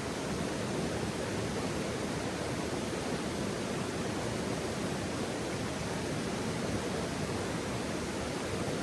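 Steady rushing of running water, even and unbroken, with no crackles or pops.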